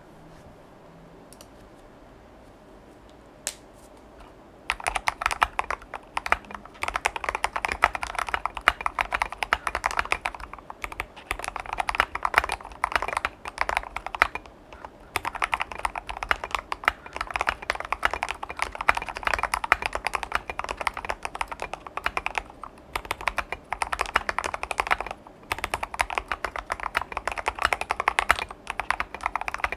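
Fast typing on a KBD75v2 custom mechanical keyboard with lubed Gateron Ink Black linear switches, a brass plate and SA-profile PBT keycaps. A single keystroke comes after a few quiet seconds, then dense, rapid keystrokes begin about five seconds in and run in long bursts with a few brief pauses.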